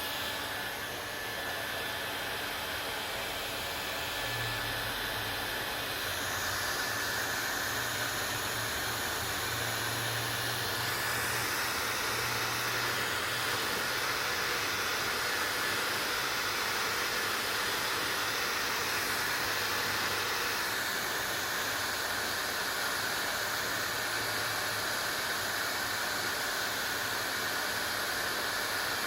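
Hair dryer running continuously: a steady airy rush of fan and blown air with a faint low hum, its tone shifting slightly a few times.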